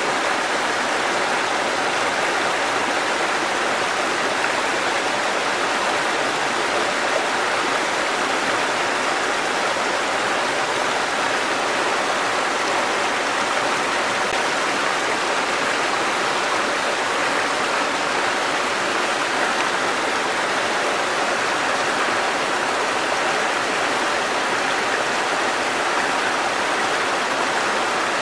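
A small waterfall, a thin curtain of water falling onto rocks and splashing into a shallow pool, making a steady, even rush of water that does not change.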